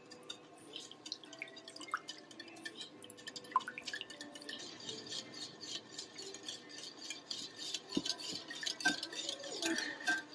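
Wire whisk beating condensed cream soups and chicken stock in a glass bowl: quick liquid sloshing with fine clicks of the wires against the glass, growing busier about four seconds in.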